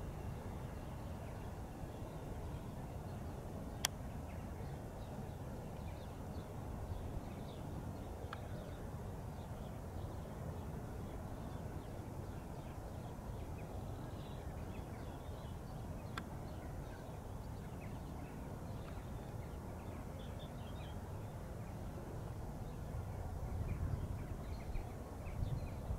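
Quiet outdoor background: a steady low rumble with faint, scattered bird chirps and a single sharp click about four seconds in. The rumble gets louder and uneven near the end.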